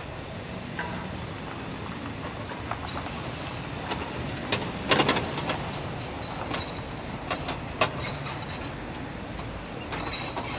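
Freight train rolling past: a steady rumble with irregular clicks and knocks, and a louder burst of clanking about five seconds in.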